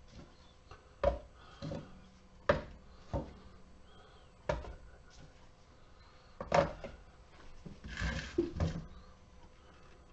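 Small sealed lead-acid batteries being picked up and set down one after another for weighing: a string of about a dozen irregular hard clunks and knocks, the loudest about two-thirds of the way through.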